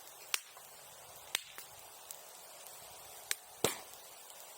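Bonfire crackling, with about six sharp pops from the burning wood, the loudest a double pop near the end.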